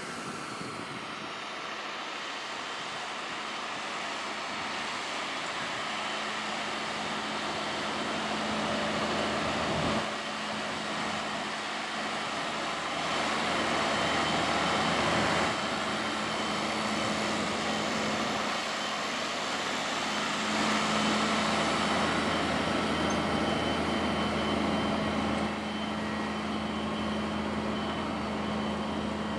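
Farm tractor's diesel engine running steadily in the field, slowly growing louder, with a few sudden jumps in level.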